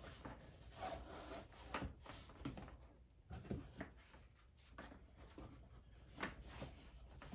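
Hands shifting things inside a leather tote and pushing in a pair of high-heeled shoes: faint, irregular rubbing with soft knocks.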